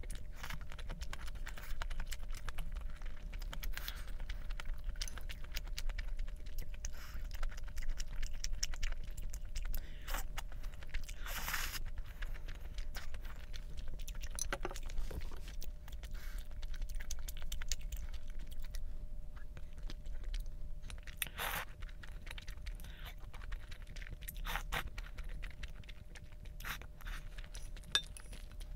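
A person chewing and biting food, with scattered small crunches and clicks and a couple of louder rustling bursts, over a steady low hum.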